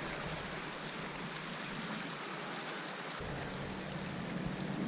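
Steady hiss of flowing creek water, with a low rumble joining about three seconds in.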